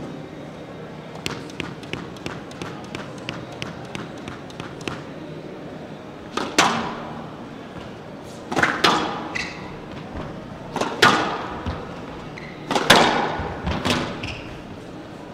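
A squash ball is tapped against the floor with the racket about a dozen times in quick succession. Then a rally starts with loud, irregular smacks of racket on ball and ball off the walls of a glass court, each ringing on in the hall.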